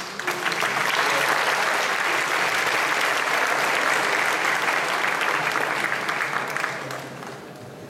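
Audience applauding in a concert hall, with the musicians on stage joining in. The applause dies away near the end.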